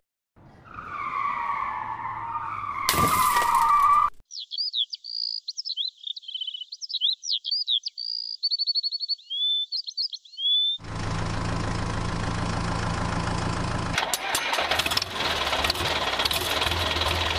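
A run of added sound effects: a wavering tone and a sharp crash about three seconds in, then several seconds of high chirping and twittering, then from about eleven seconds a steady heavy engine running, with a few clicks around fourteen seconds.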